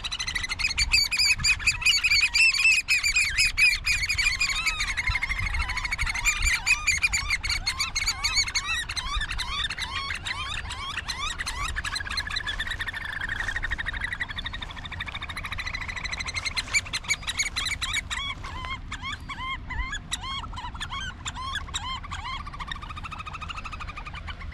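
A family group of birds calling noisily together, a rapid, overlapping stream of shrill piping notes, loudest in the first few seconds and then carrying on.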